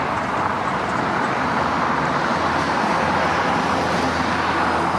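Road traffic going by: a steady rush of car tyres and engines.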